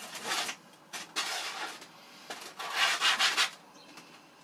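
Hands rubbing on a foam model jet's fuselage as a carbon-rod wing spar is slid into its socket: three scraping rubs, the last and loudest about three seconds in.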